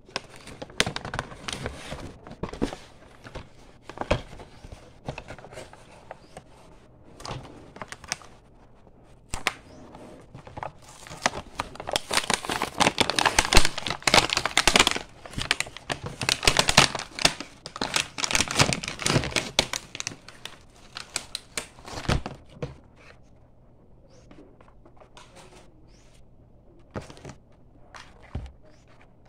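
Stiff clear plastic blister packaging crinkling, crackling and tearing as it is pulled apart by hand from its cardboard backing, densest and loudest in the middle. Near the end there are only a few scattered clicks of plastic toy parts being handled.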